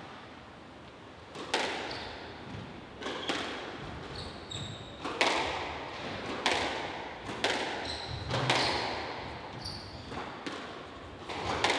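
Squash rally: sharp smacks of racket on ball and ball off the walls, about one a second, each ringing in the enclosed court, with short squeaks of court shoes on the wooden floor between them.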